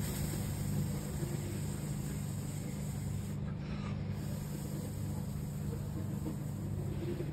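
Steady low hum with a faint hiss, unchanging and with no distinct events.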